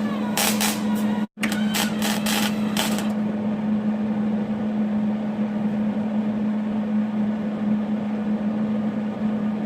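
A small electric power-tool motor running at a steady pitch, with a quick series of clicks and rattles in the first three seconds. The sound cuts out completely for a moment about a second in.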